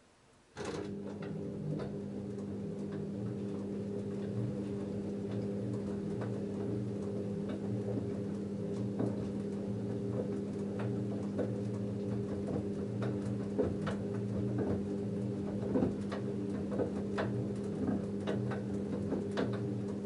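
LG F10A8HDS5 front-loading washing machine's direct-drive motor starting about half a second in and turning the drum through a wash tumble, a steady hum with scattered clicks and splashes as the wet denim load tumbles.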